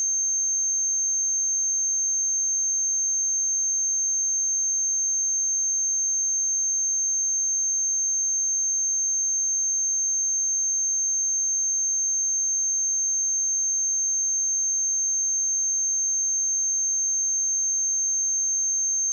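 A single steady, high-pitched 6347 Hz sine-wave test tone, held at constant pitch and level.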